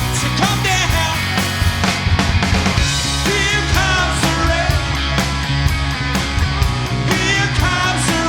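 Loud rock song with a full band, drums, guitar and a singing voice.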